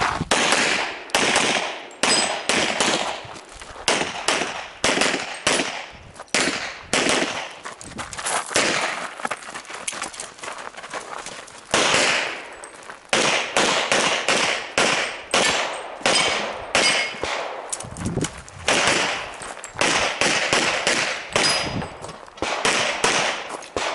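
Pistol shots in quick pairs and short strings through a practical-shooting (IPSC) stage, each shot followed by a short ringing tail, with brief gaps as the shooter moves between positions.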